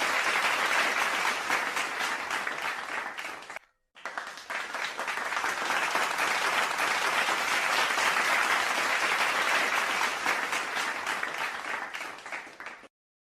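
Applause: many hands clapping in a dense patter that fades out and stops about three and a half seconds in, then starts again and fades away near the end.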